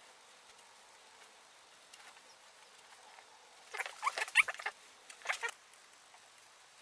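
Glue bottle being squeezed, giving short squeaky sputters and light taps in two brief bursts about four and five seconds in, as wood glue goes onto the pieces for glue-up.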